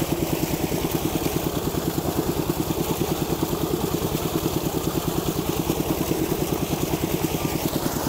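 A small engine running steadily at idle, with an even pulsing beat of several pulses a second.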